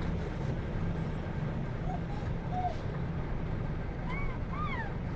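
Steady low rumble of a moving bus's engine and road noise heard from inside the vehicle. Near the end, two short rising-then-falling calls sound over it.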